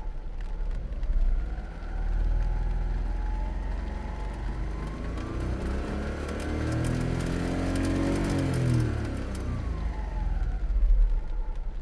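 Honda Beat's 656 cc three-cylinder engine revved up slowly from idle, held high and let back down, with a high rapid crackling that comes in as the revs rise: the owner takes it for a torn alternator belt that is still charging. At idle a lower crackle is rain on the soft top.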